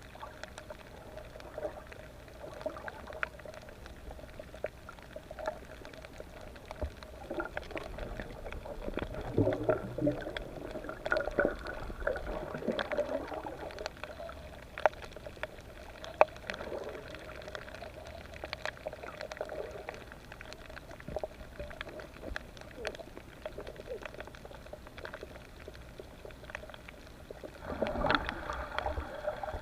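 Underwater sound as picked up by a diving camera: bubbling and gurgling water with many scattered sharp clicks and crackles over a steady mid-pitched tone, the bubbling swelling about a third of the way in and again near the end.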